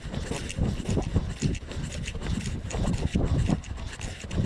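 Hoofbeats of a Tennessee walking horse moving briskly along a trail under a rider: a quick, irregular run of thuds.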